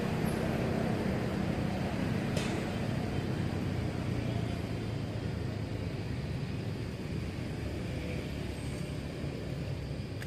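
Low, steady rumble of a running vehicle engine, slowly easing off, with one sharp click about two and a half seconds in.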